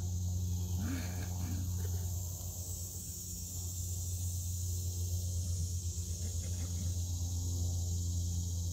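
Steady high chirring of insects in the summer garden over a steady low electrical hum.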